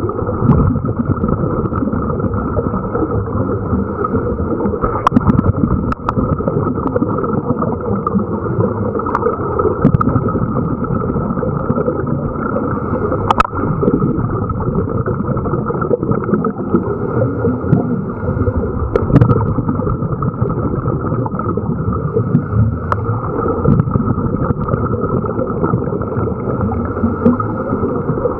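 Muffled, steady underwater rush of water picked up through a camera's waterproof housing on a scuba dive, with a few sharp clicks now and then.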